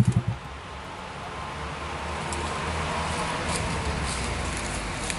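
Yamaha Aerox scooter's single-cylinder four-stroke engine idling with a fast, even putter, then cutting off a fraction of a second in. After that comes a steady low rush that slowly grows louder.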